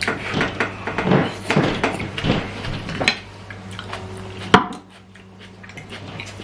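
Cutlery clinking and scraping on a plate while eating, with one sharp, loud clink about four and a half seconds in. A steady low hum runs underneath.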